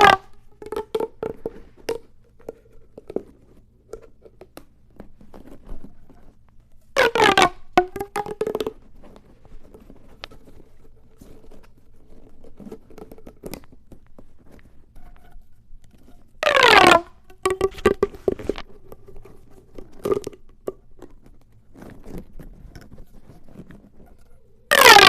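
Ribbed plastic pop tube fidget toys being stretched and squeezed. Twice comes a quick loud zip that falls in pitch as the ribs snap over, about a third and two-thirds of the way in, with soft crackles and clicks of the plastic in between.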